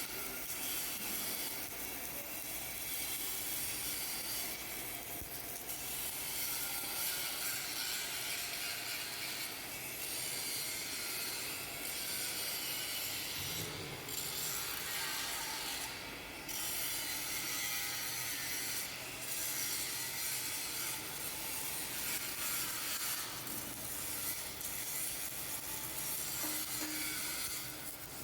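Automatic submerged arc welding running: a steady crackling hiss with no pauses.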